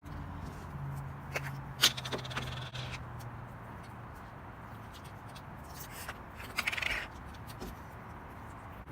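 Handling of small plastic slime containers and packaging: scattered clicks and taps with a brief crackly scrape near the end, the sharpest click about two seconds in, over a low steady hum.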